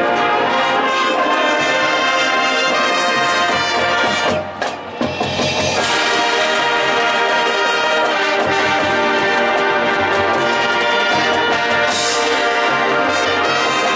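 High school marching band playing loudly, its brass section carrying the music over the front-ensemble percussion, with a brief break about four and a half seconds in before the full band comes back in.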